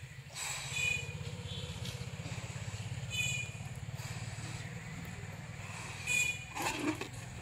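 An engine running steadily, a low drone with a fast, even pulse, with a few short high squeaks over it.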